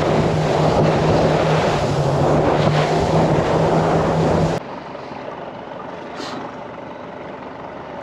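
Motorboat under way: the engine's steady hum under a loud rush of wind and water. It cuts off suddenly about four and a half seconds in, leaving a much quieter steady wash of water and wind.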